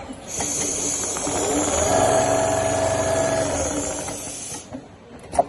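Richpeace CNC leather sewing machine running, its motor hum rising in pitch, holding steady and falling again as it speeds up and slows down, over a steady hiss that starts and stops abruptly. A sharp click comes near the end.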